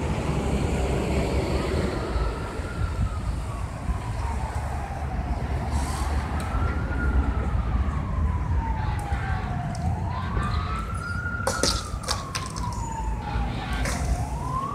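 Emergency vehicle siren wailing in a slow rise and fall, about one cycle every four seconds, over a low steady rumble. A couple of sharp clicks sound about twelve seconds in.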